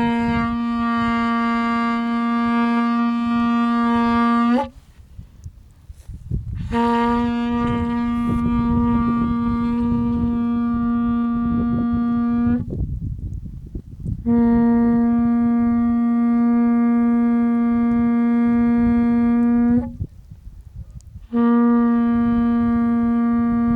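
Shofar blown in long, steady single-pitch blasts of about five to six seconds each: one is already sounding and stops about four and a half seconds in, two more follow after short breaths, and a fourth begins near the end.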